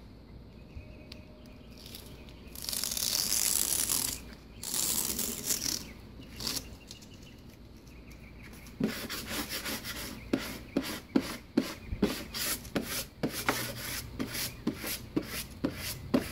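Plastic squeegee rubbing over the paper transfer sheet of a large vinyl decal, pressing it down onto a wetted vehicle panel. Two longer hissing rubs come about three and five seconds in, then quick short scraping strokes, two or three a second, from about nine seconds in.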